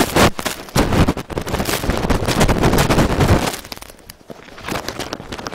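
Rushing snow and wind battering the camera's microphone as it is carried down in a slab avalanche, full of sharp crackling hits. The noise eases about three and a half seconds in, leaving shorter gusts.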